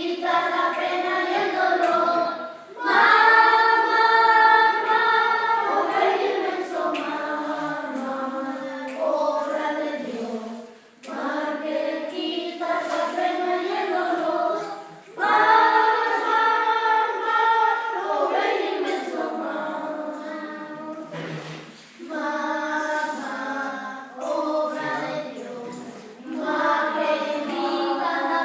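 A choir singing together in phrases of a few seconds each, with brief breaks between them for breath.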